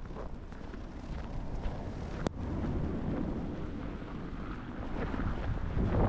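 Blizzard wind buffeting the microphone in a steady low rumble, with the crunch of footsteps in snow. A single sharp click about two seconds in.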